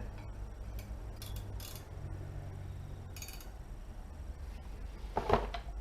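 A few short metallic clicks and scrapes as a measuring tool is set against a motorcycle's steel brake rotor to gauge its thickness, over a low steady hum.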